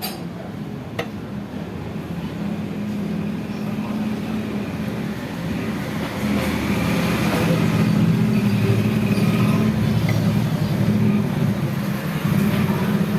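A steady low hum that grows louder about six seconds in, with a sharp click at the start and another about a second later.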